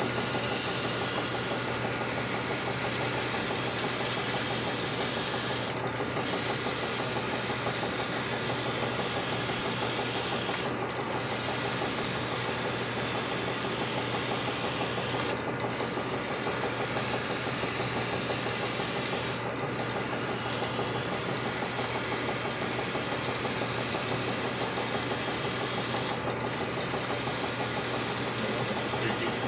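Abrasive paper hissing steadily against a spinning metal part, over the steady hum of a lathe, with about five short breaks.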